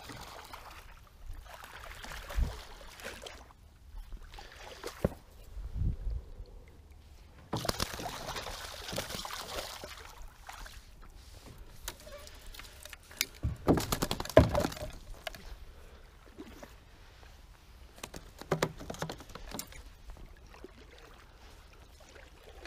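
Water sloshing, splashing and dripping around a small boat pushed along with a wooden pole, with a longer stretch of pouring water partway through. A few low knocks on the hull, the loudest about two-thirds of the way in.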